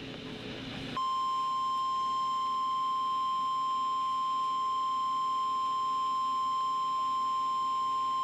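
NOAA Weather Radio receiver hissing for about a second, then the steady 1050 Hz warning alarm tone comes on: the Emergency Alert System signal that announces a warning about to be read.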